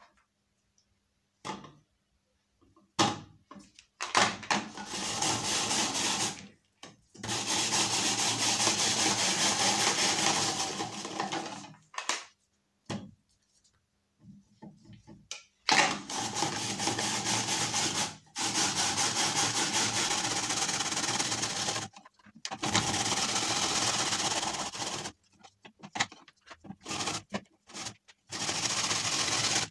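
Hand-cranked Fusion rotary drum grater shredding carrot: long spells of grating noise, several seconds each, broken by short pauses with clicks and knocks as fresh carrot pieces are fed into the hopper.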